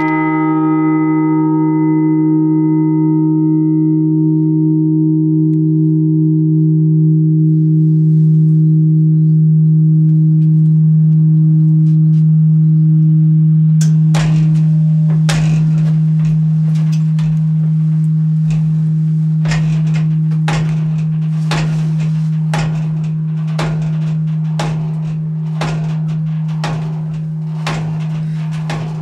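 Large bronze church bell in its bell chamber humming on after a stroke: a deep, steady ringing tone whose higher ring fades within a few seconds. From about halfway through, a run of sharp clicks and knocks sounds over the hum.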